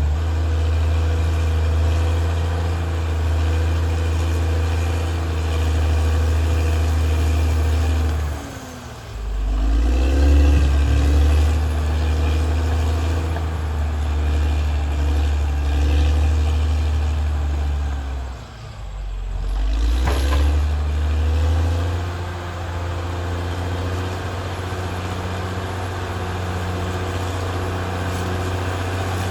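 Caterpillar D6R XL bulldozer's diesel engine running steadily. Twice it drops in pitch and then revs back up.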